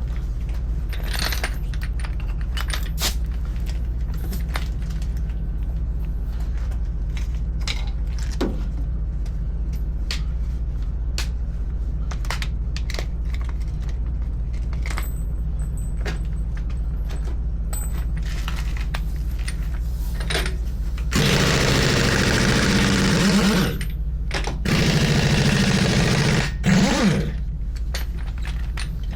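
Scattered metallic clinks and taps of tyre-changing work over a steady low hum, then two loud bursts of a compressed-air tool, each two to three seconds long, with a short gap between them.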